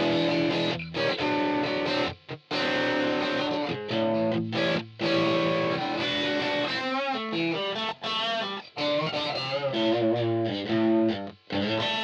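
Squier Affinity Stratocaster electric guitar played through a Line 6 POD HD500 with a distorted tone. Held chords and notes cut off sharply several times, with wavering vibrato notes about seven seconds in.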